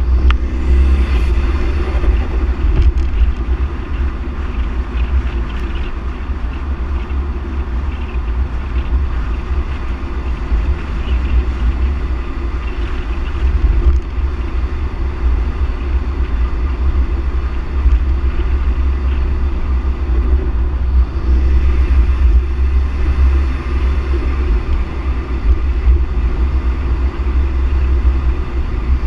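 Ford Focus ST driving at a steady cruising speed: a constant rumble of wind buffeting an outside microphone mounted low on the car, over tyre and engine noise.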